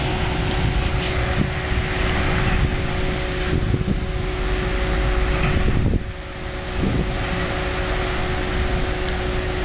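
Heavy lorry engine running as an oil tanker truck pulls away, a steady mechanical hum with low rumble that dips briefly about six seconds in.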